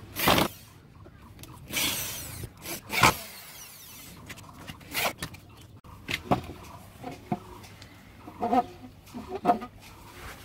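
Electric drill running in three short bursts in the first three seconds, boring into the wooden planks of a scooter frame. Fainter scattered knocks and short sounds follow.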